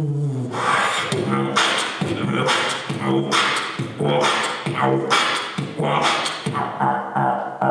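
Human beatboxing into a handheld microphone: a held vocal note glides down at the very start, then a steady beat of sharp mouth-made drum strikes, about one a second, with a hummed pitched line between them.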